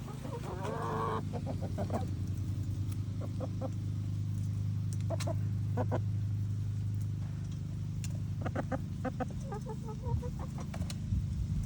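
Chickens clucking, with short single clucks and quick runs of clucks, over a steady low hum that fades about seven seconds in.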